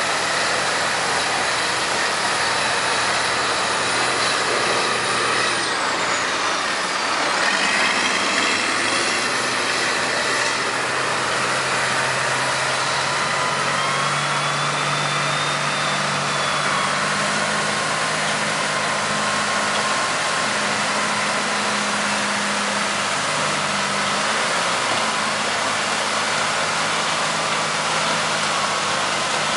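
Caterpillar wheel loader's diesel engine running under load as it works a pile of wood chips and drives off with a full bucket, its pitch stepping up partway through. A high whine falls and then rises a few seconds in, over a steady loud hiss.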